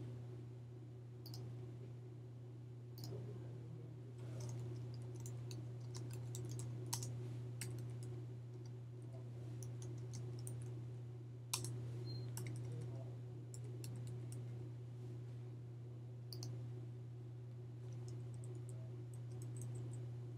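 Scattered, faint clicks of a computer keyboard and mouse as text is typed and selected, over a steady low electrical hum.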